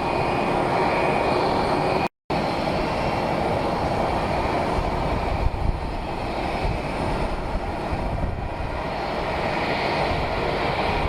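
Steady aircraft engine noise at an airport, even and unbroken apart from a brief cut-out about two seconds in.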